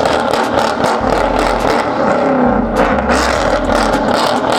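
Car engine revving loudly over a continuous din of street noise, the engine note rising and falling about halfway through.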